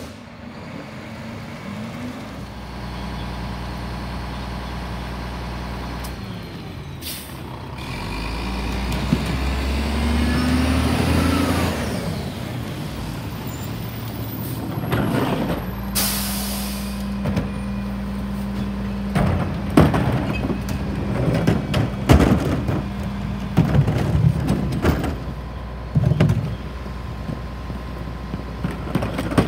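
Rear-loader garbage trucks working: the diesel engine runs while the hydraulic packer whines up in pitch, a loud burst of air hisses about halfway through, then repeated bangs and clatter follow as trash carts are tipped into the hopper.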